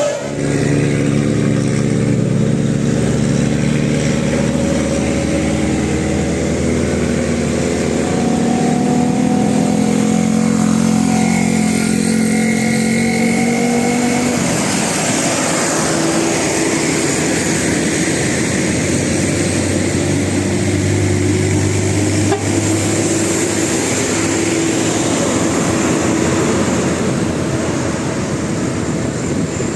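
Road traffic with large vehicle engines running steadily as they pass. About halfway through, the drone shifts to a different, deeper engine note.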